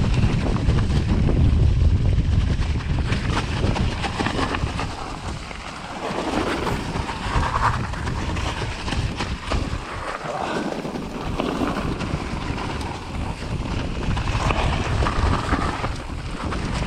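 Heavy wind buffeting on a moving action camera's microphone, with frequent small knocks and rattles as it travels over rough ground.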